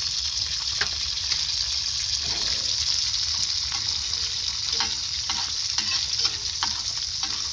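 Duck egg sizzling steadily in bubbling butter in a small cast iron skillet, with a few short scrapes and taps of a metal spatula against the pan.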